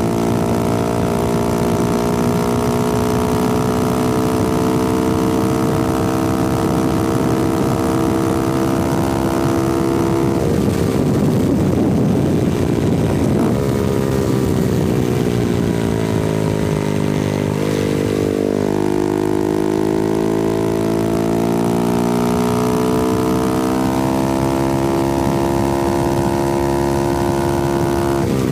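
Honda Grom's 125cc single-cylinder four-stroke engine, with the exhaust miked, running while riding downhill. It holds steady revs for about ten seconds, turns rougher and noisier for several seconds, then the revs drop and climb again before settling.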